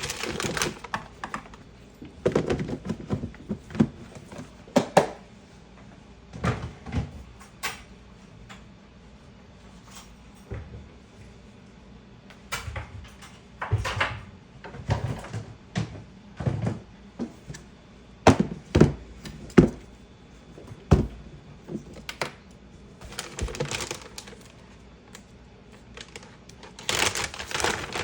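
Irregular knocks, clicks and short rustles from dried herbal medicine ingredients being handled by hand during compounding, some knocks sharp and woody, with bursts of rustling near the start, about two-thirds through and at the end.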